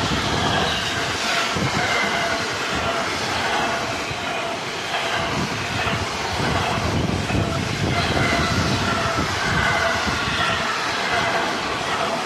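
A freight train of flat wagons carrying lorry trailers passing close at speed: a steady loud rumble of wheels on the rails, with rapid clatter and faint high squealing from the wheels.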